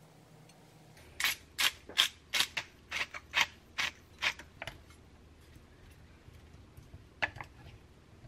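Hand pepper mill being twisted: about a dozen sharp ratcheting clicks, a little over two a second, for about three and a half seconds. Two lighter clicks near the end as wooden spoons touch the plate.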